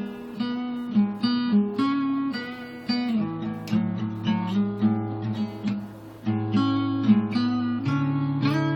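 Acoustic guitar playing the instrumental opening of a song, chords picked and strummed over ringing bass notes, a fresh attack about every half second.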